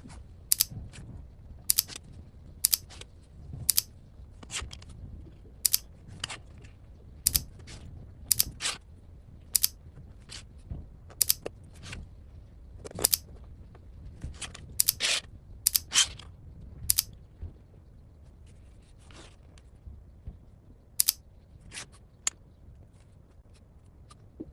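Sharp mechanical clicks and snaps from a small hand mechanism, irregularly spaced at roughly one a second. A few are followed by a short rasp, and a faint low hum runs between them.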